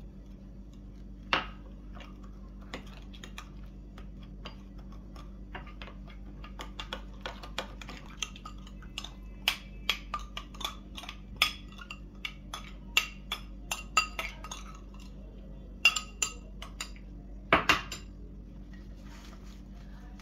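Metal spoon clinking and scraping against a small glass bowl while stirring a spice marinade and scraping it out, in many irregular sharp clinks, busiest in the middle. There is a louder knock about a second in and another near the end, over a steady low hum.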